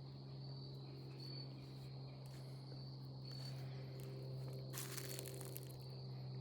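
A propeller aircraft drones steadily overhead, while a cricket chirps in short high pulses about once a second. A brief rustle about five seconds in.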